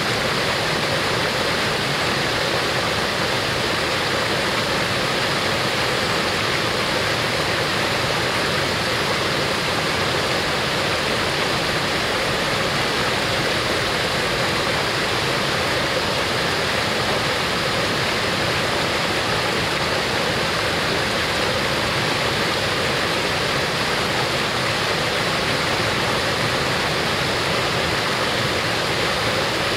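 Small waterfall pouring over boulders into a shallow rocky stream, giving a steady, even rush of water.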